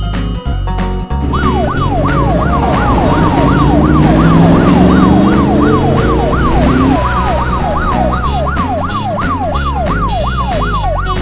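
Emergency-vehicle siren sweeping rapidly up and down, about three times a second, over background music, with a lower tone rising in pitch for a few seconds in the middle.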